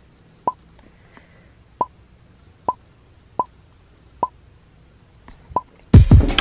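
About six short, soft pops spaced irregularly a second or so apart over a quiet room, with a few fainter ticks between them. Near the end a sudden loud burst of noise with low thumps cuts in.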